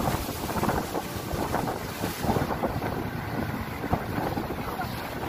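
Speedboat under way at speed, driven by twin outboard motors: wind gusting on the microphone over the rush of water and the motors.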